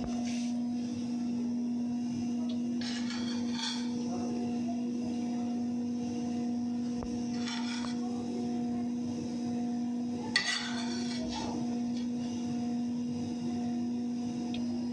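A spoon scraping and clinking against a frying pan a few times while chicken pieces are scooped out, with one sharp clink about ten seconds in, over a steady low hum.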